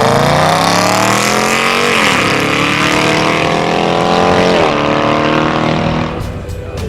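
A car engine accelerating hard, its pitch climbing through the revs and dropping with two upshifts, about two seconds in and near the five-second mark, then fading as the car pulls away.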